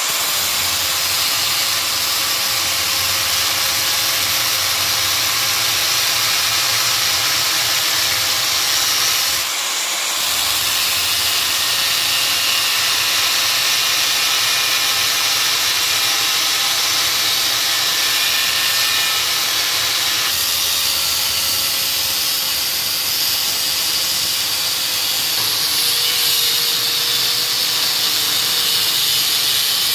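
Angle grinder with an abrasive disc grinding down a metal block clamped in a vise: a steady, high grinding hiss over the motor's whine, easing off briefly about ten seconds in.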